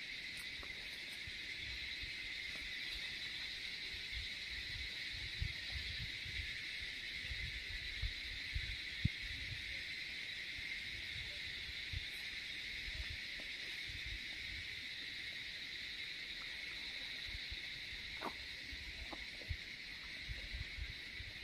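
Steady chirring of insects, an unbroken high hum at two pitches, with faint low thumps now and then.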